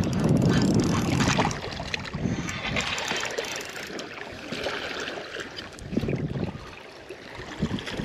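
Wind buffeting the microphone for the first second and a half, then small waves lapping and washing over a rocky, gravelly shoreline.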